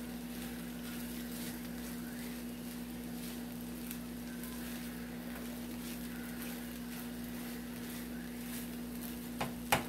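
Potatoes and eggs frying with a faint sizzle and crackle in a skillet while a spatula stirs and scrapes them, over a steady low hum. A quick run of sharp clicks starts at the very end.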